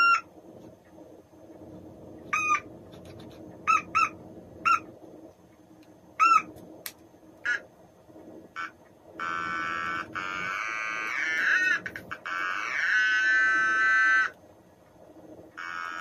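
Otamatone, the handheld electronic toy instrument, played in about seven short separate notes. Then come longer held notes that slide up and down in pitch through the second half, with a new note starting near the end.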